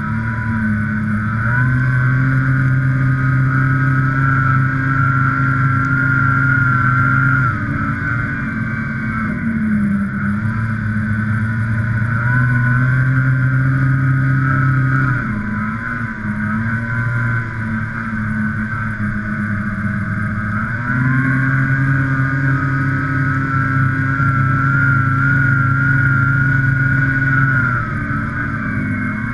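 Snowmobile engine running at speed with a steady high pitch. It eases off about eight seconds in, picks up again, drops around fifteen seconds, and climbs back and holds from about twenty-one seconds until just before the end.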